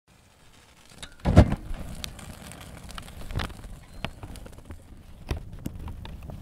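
Fire sound effect of paper igniting and burning: a loud whoosh of flame about a second in, then scattered crackles over a low rumble.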